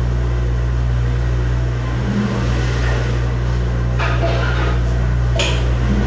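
Commercial Auto-Chlor dish machine giving a steady low hum, with short clatters of plastic ware and a dish rack being handled about four seconds in and again near the end.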